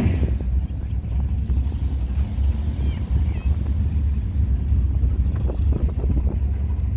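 Steady low rumble of a motor vehicle running, with a haze of road or wind noise over it.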